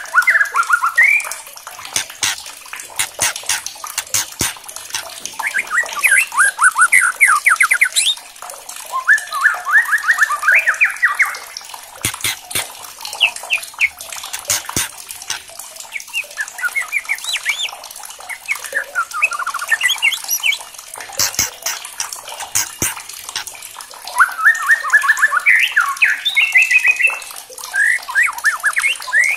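White-rumped shama singing in bouts of fast repeated whistled notes, mixed with dry rattling clicks (the shama's 'kretekan' chatter) and a few very high thin notes.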